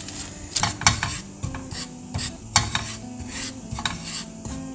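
A spatula scraping and stirring dry glutinous rice flour around a nonstick wok, toasting it over low heat, in irregular short strokes.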